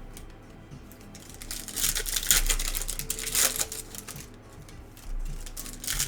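Foil trading-card pack wrappers being torn open and crinkled by hand, in two bouts of rustling, over faint background music.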